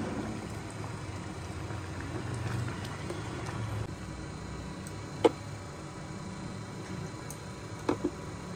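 Dal simmering in a kadai with a low steady rumble, a wooden spatula stirring through it in the first few seconds. A single sharp metal clink about five seconds in and two quick clinks near the end as a spoon strikes the pan.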